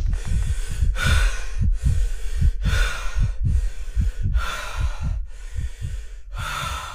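A racer breathing hard, close up and out of breath from exertion, with a hissing breath about once a second. Irregular low thumps run underneath.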